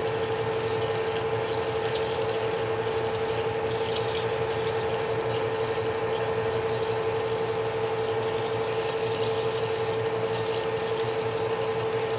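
Manual metal lathe turning slowly at 125 RPM while an AMEX indexable spade drill cuts into solid bar stock under flood coolant. The sound is a steady machine hum with one constant high tone, and splashing coolant throughout.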